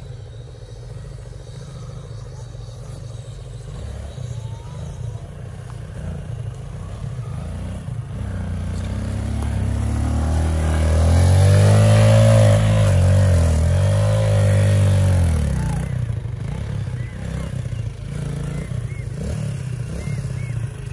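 Kawasaki D-Tracker 150's single-cylinder four-stroke engine, growing louder as the motorcycle comes up a steep dirt path, revving hard close by around the middle with its pitch rising and falling, then settling lower as it pulls onto the road.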